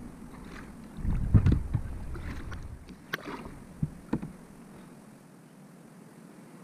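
Kayak being paddled: paddle strokes in the water with a low rumble about a second in and a few sharp knocks between three and four seconds in, then quieter.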